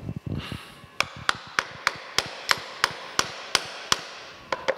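A steel feed-shaft assembly being driven down onto its shaft: a run of about ten sharp metal taps, about three a second, to seat a gear piece, with two more taps near the end.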